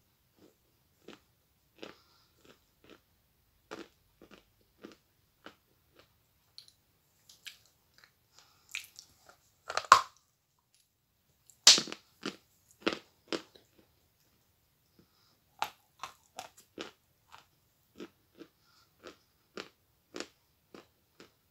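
A person biting into a large lump of edible chalk and chewing it, short sharp chews about once a second. Two much louder bites come just before and just after the middle, followed by a short pause in the chewing.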